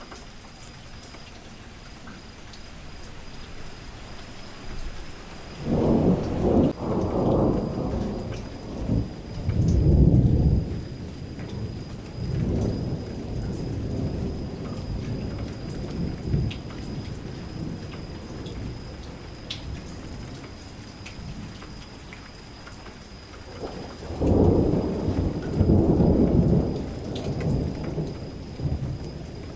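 Steady rain falling, with rolls of thunder rumbling twice: one about six seconds in that swells over several seconds, and another near the end.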